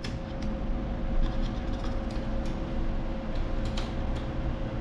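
ATM card reader taking in a chip bank card: a series of short mechanical clicks over the machine's steady hum, which carries one constant tone.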